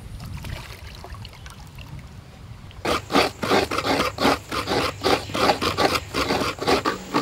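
Fresh coconut halves being scraped by hand on coconut scrapers. From about three seconds in there is a quick run of short, rasping strokes, about three a second.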